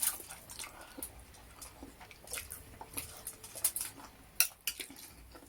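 Eating sounds: scattered crisp clicks and crunches from chewing crunchy fried chicken, with light clinks of cutlery on plates.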